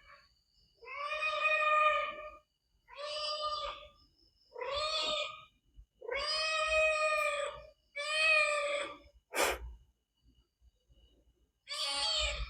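A cat meowing repeatedly: six drawn-out meows, each about a second long, with a sharp click about nine and a half seconds in.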